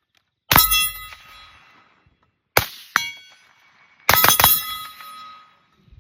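CMMG MK47 rifle in 7.62×39 firing: a shot about half a second in, two more near the middle, and a quick string of shots a little before the end. Each is followed by the clear metallic ring of a steel target being hit, fading over about a second.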